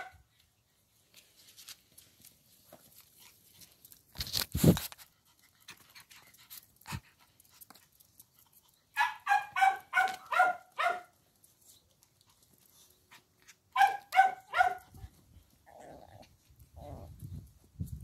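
Yorkshire terrier puppy yapping: a quick run of about six high yaps, then four more a few seconds later. A single loud thump comes about four seconds in.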